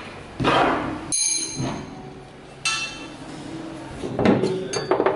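Metal clinks and knocks as a hand tool and a steel motorcycle luggage carrier are handled. Two of the strikes, about a second in and again near the middle, ring on briefly, and a few more knocks follow near the end.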